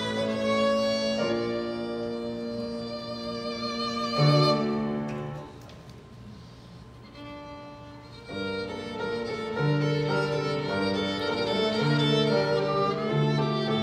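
Live violin playing sustained melody notes with piano accompaniment. About five seconds in the music falls away to a quiet pause of a few seconds, and the violin comes back in about eight seconds in.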